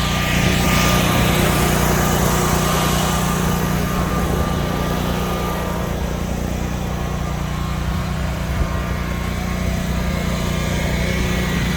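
Car engine running steadily, with an even low hum throughout.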